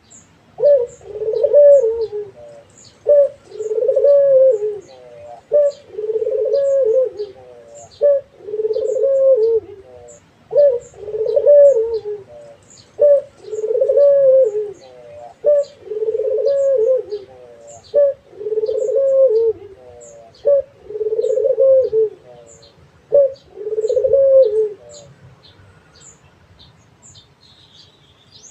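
Puter dove (a domestic collared dove) cooing in its repeated 'manggung' song: about ten low phrases, each a short note followed by a longer rolling coo, evenly spaced about two and a half seconds apart, stopping near the end. Faint high chirps tick along in the background.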